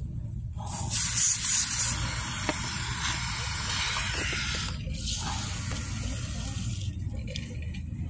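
Fix-a-Flat aerosol tyre sealant can hissing as it discharges through its hose into the tyre valve. The hiss starts about half a second in, is loudest for the first second, eases, and stops near five seconds, with a fainter hiss until about seven seconds.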